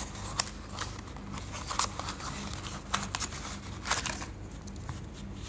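Rustling and a few scattered light clicks as a wristwatch on a fabric strap is handled and lifted off its box pillow, over a low steady hum.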